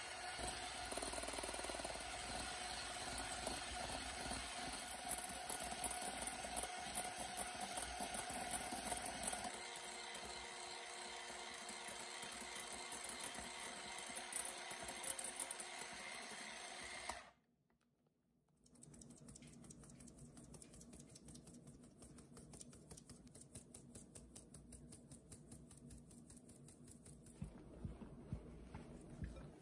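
Braun electric hand mixer whipping egg whites and sugar into stiff meringue, a steady motor whir with beaters churning in a glass bowl; about a third of the way in it drops to a lower speed, the low-speed pass that evens out the bubbles once stiff peaks form. After a short break it is followed by softer scraping and tapping of a silicone spatula folding almond flour into the meringue in the glass bowl.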